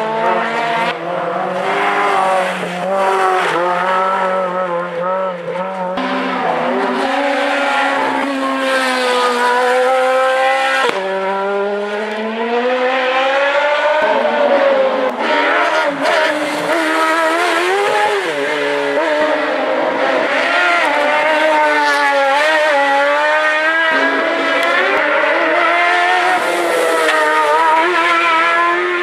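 Race car engine at full throttle on a hill climb, revving up through the gears. The pitch climbs steadily and drops sharply at each shift, about six, eleven and fourteen seconds in, then rises and falls through the corners.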